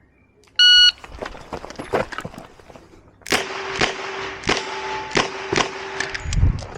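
An electronic shot timer beeps once, then a Ruger GP100 Match Champion revolver fires .38 Special rounds in a quick string of shots, coming more densely from about three seconds in.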